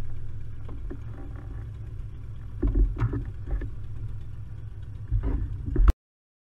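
Glider cockpit noise at the start of an aerotow ground run on grass: a steady low rumble with several knocks and thumps as the airframe jolts over the ground. It cuts off suddenly near the end.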